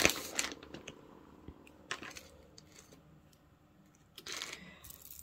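Costume jewelry being handled: scattered small clicks and clinks of metal pieces, with a brief rustle about four seconds in.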